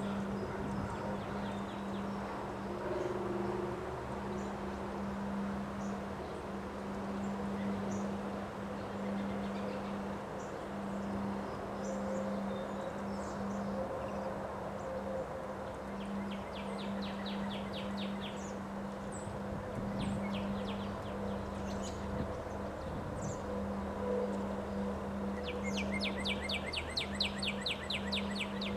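Wind blowing steadily, with a steady low hum underneath. A small bird gives rapid, high trills twice, about halfway through and again near the end.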